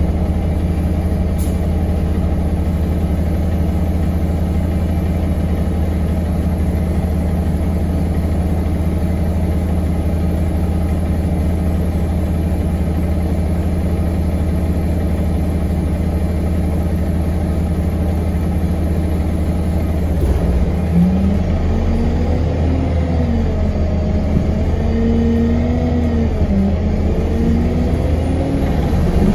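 Onboard sound of an Alexander Dennis Enviro 200 MMC single-deck bus's diesel engine heard from inside the saloon. It runs with a steady low drone, then about two-thirds of the way through its note rises and dips several times as the bus accelerates and shifts gear.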